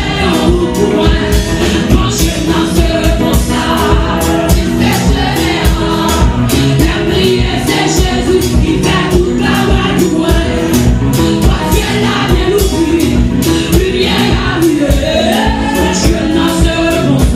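Amplified gospel worship singing: a woman's lead voice through a microphone with other women singing along, over accompaniment with a steady beat.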